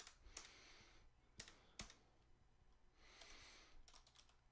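Faint, scattered keystrokes on a computer keyboard: a handful of separate key taps, spaced out.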